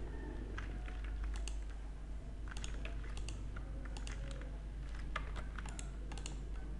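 Computer keyboard keys and mouse buttons clicking in short, irregular clusters of taps, over a steady low hum.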